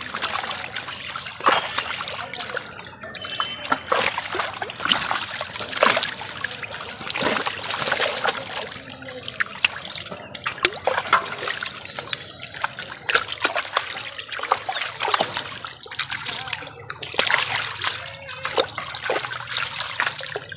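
Live fish thrashing in shallow water inside a drawn-in seine net while hands grab them out, giving irregular sharp splashes over a steady trickle and drip of water.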